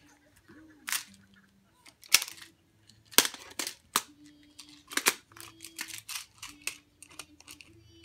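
Plastic magnetic building tiles clicking and clacking against each other as a child handles and snaps them together: about a dozen sharp, irregular clicks.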